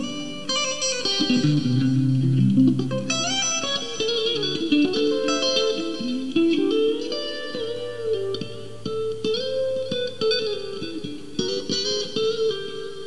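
Squier Classic Vibe '50s Stratocaster electric guitar with three single-coil pickups, played through a clean amp tone. It plays single-note lead phrases whose notes bend and waver in pitch, using the tremolo bar.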